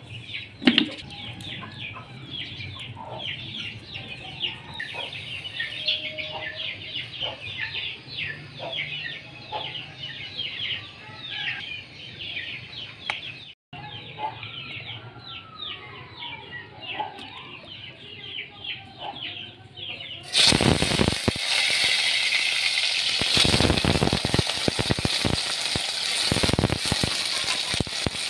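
Birds chirping busily, many quick high falling chirps. About twenty seconds in, potato slices go into hot oil in a steel wok, and a loud sizzle of frying takes over.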